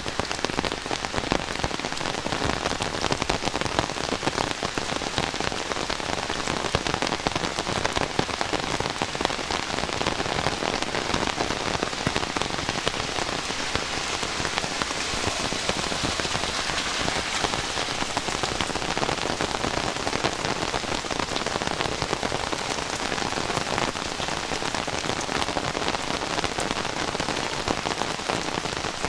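Heavy rain falling steadily, a dense patter of drops hitting the ground.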